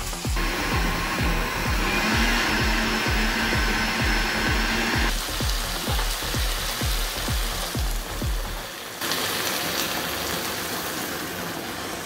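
Background music with a steady beat, about two thumps a second, over a continuous hiss; the beat stops about nine seconds in, leaving only the hiss.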